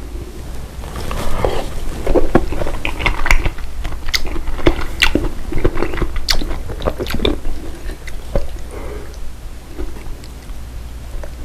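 A person chewing and biting food close to the microphone, with crunchy, wet mouth sounds and many sharp clicks, busiest in the first two thirds and easing off near the end.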